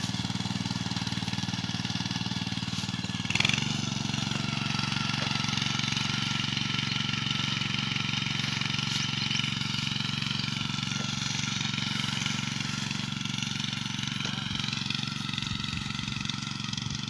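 Small engine of a walk-behind power weeder running steadily as it works between crop rows. A brief knock comes about three and a half seconds in, after which the engine note sits slightly higher.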